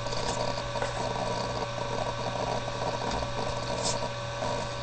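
Soft rustles and light clicks of trading cards being handled and flicked through, one a little sharper about four seconds in, over a steady electrical hum in the microphone.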